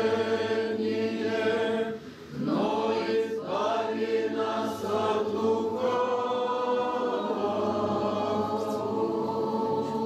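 Male choir of boys and young men singing Greek Orthodox Byzantine chant, the melody moving over a steady low held drone note (the ison). The singing dips briefly about two seconds in for a breath, then carries on.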